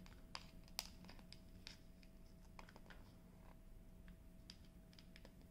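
Faint, scattered light clicks and taps of small plastic LED bulbs being pushed through holes in a diamond-painting LED lamp's plastic face.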